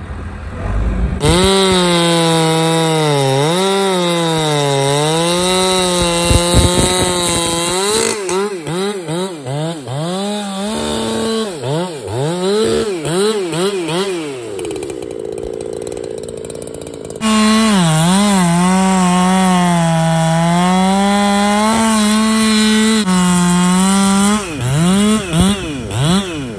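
Solo 681XS two-stroke chainsaw cutting through a large log at full throttle, its pitch sagging and recovering as the chain loads up in the wood. Between the two long cuts, and again near the end, the throttle is blipped in quick rising-and-falling revs, and the saw drops to a lower, quieter run for a couple of seconds in the middle.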